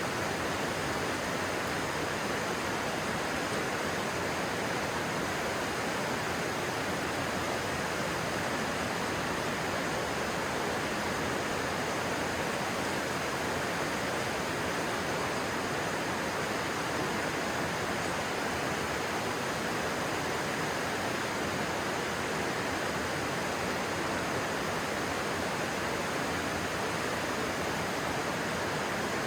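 Stream water rushing steadily, a constant even roar with no breaks.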